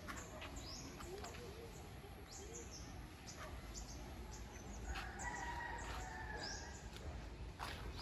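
Rooster crowing: one long call starting about five seconds in. Short, high bird chirps come and go throughout.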